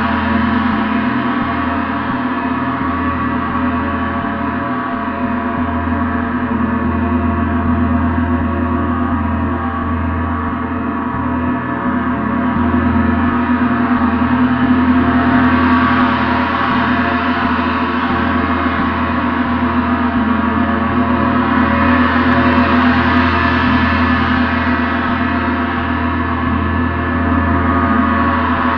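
A gong played continuously, ringing as a dense wash of many overlapping tones with no separate strikes standing out. The sound swells twice, in the middle and near the end.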